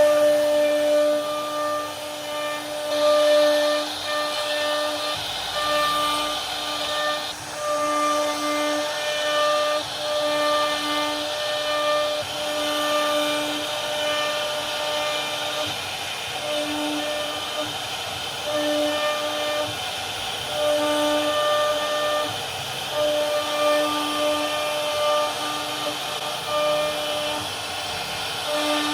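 CNC router spindle cutting wood, a steady whine that drops out and comes back every second or so over a hiss of cutting noise as the bit moves through the carving.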